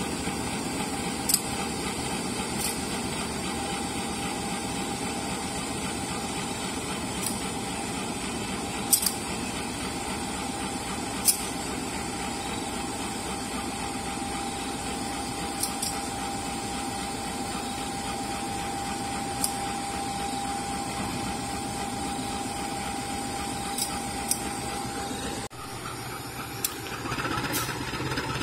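CC201 diesel-electric locomotive idling with a steady drone and a held whine, with a few sharp clicks now and then. Near the end the whine drops out and the engine sound grows louder as the train starts to move.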